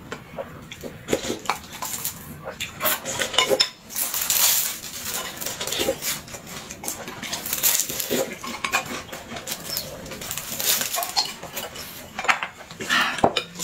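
Close-up eating sounds: biting and chewing flatbread, with repeated clinks of a spoon on a glass jar and of chopsticks on china bowls and plates.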